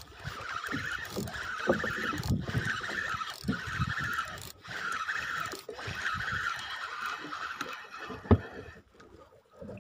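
Spinning reel being cranked in short spells about once a second as a hooked fish is wound up, its gears whirring with each spell, with low knocks underneath and one sharp knock near the end.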